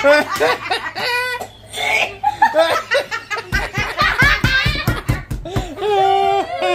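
People laughing hard together, belly laughs and giggles in quick pulses.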